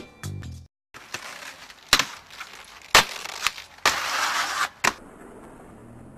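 Aggressive inline skates hitting a stone stair ledge, with several sharp clacks of landings. Near the middle comes a grind of about a second along the ledge, ending in a hard impact.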